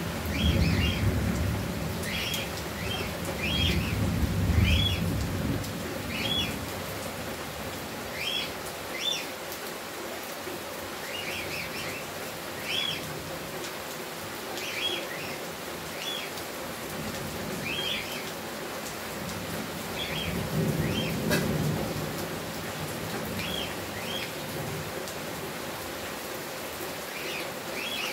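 Heavy rain falling steadily, with a bird repeating short high chirps every second or two. A low rumble swells in the first few seconds and again about two-thirds of the way through.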